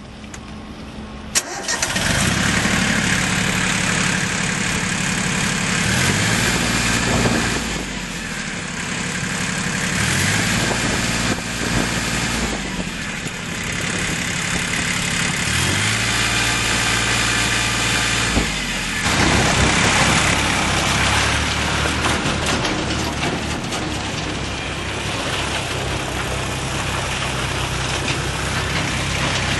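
Diesel farm tractor engine starting about a second in, then running loudly, with the throttle raised and let back three times.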